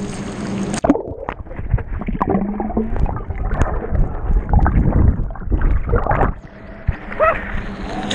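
Swimming-pool water heard from underwater: muffled churning and gurgling as a swimmer thrashes nearby, loudest about halfway through. It goes under just after a splash about a second in.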